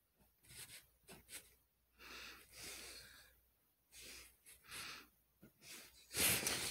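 Faint scratchy strokes of a drawing tool rubbing over textured canvas, several short ones and one longer one. A louder rustle comes near the end.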